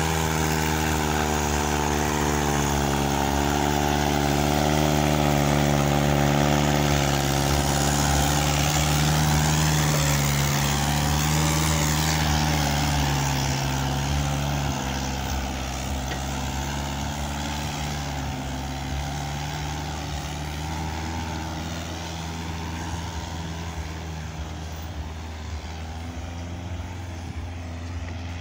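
Mahindra 575 DI tractor's four-cylinder diesel engine labouring under heavy load as it tows a full trolley uphill, a steady drone. The pitch sags slightly about halfway through, and the sound grows gradually fainter over the second half.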